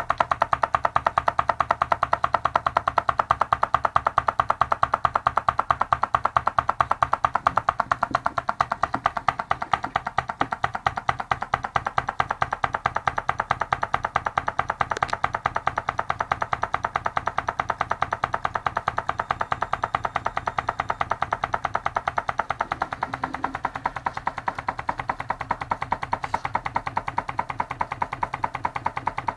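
Homemade tin-can Stirling engine running on a candle: its moving parts tick rapidly and evenly, several times a second, with a ringing, woody clack.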